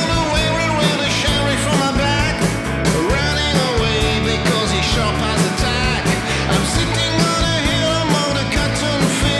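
Blues-rock band playing at full level: electric guitar, drum kit and organ over a steady beat, with a lead line that bends and wavers in pitch.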